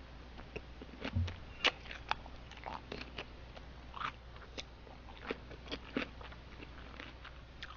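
A person chewing a mouthful of cubed radish kimchi (kkakdugi) close to the microphone: irregular crunches and wet clicks of the mouth, a few a second.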